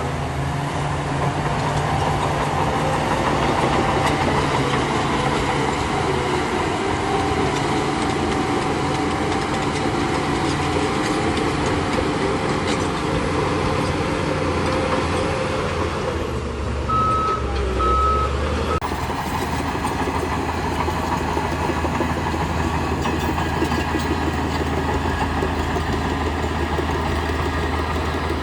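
Heavy diesel engine of a bulldozer running steadily under work. A reversing alarm gives a couple of short beeps about two-thirds of the way through.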